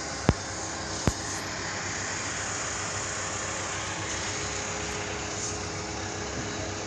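Crane machinery running with a steady, even noise, a faint held tone and a low hum. Two sharp clicks come in the first second or so.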